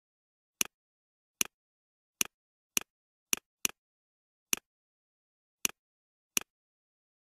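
Computer mouse clicks: nine sharp single clicks at uneven intervals, each with a fainter second tick right after it, and silence in between.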